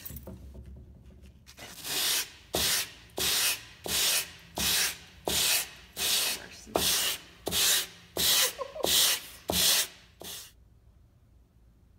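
Sandpaper wrapped around a wooden sanding block, rubbed by hand back and forth over yellow urethane foam: about fourteen quick, even, scratchy strokes, roughly one and a half a second, starting about a second and a half in and stopping near the end.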